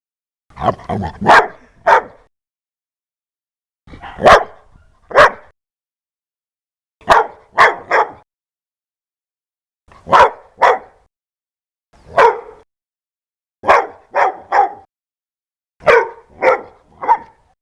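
A dog barking loudly in short bursts of two to four barks, with pauses of about one to two seconds between bursts.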